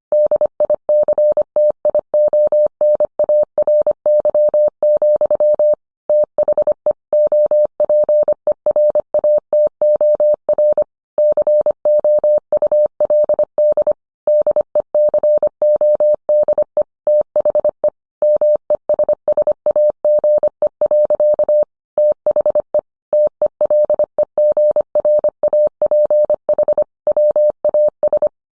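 Morse code sent as a single steady audio tone, keyed rapidly on and off in short and long elements (dits and dahs), with brief longer pauses between words.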